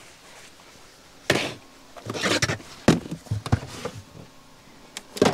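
Handling noises: a string of sharp knocks and taps with scraping and rustling in between. They start about a second in and come loudest near the three-second mark and near the end.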